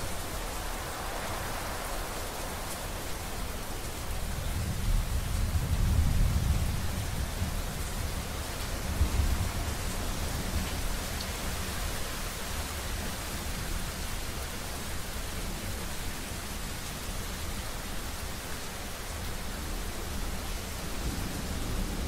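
Steady rain falling through a thunderstorm, with thunder rolling low underneath. The rumble swells about five seconds in, peaks a second later, comes back once more around nine seconds, then settles into a faint, continuous low roll.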